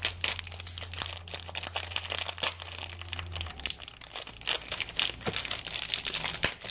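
Plastic spaghetti package crinkling and crackling as it is handled, in quick irregular crackles.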